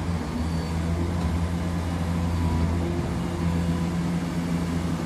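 Heavy diesel engines of a Liebherr 944 crawler excavator and a MAN dump truck running with a steady low drone while the excavator works.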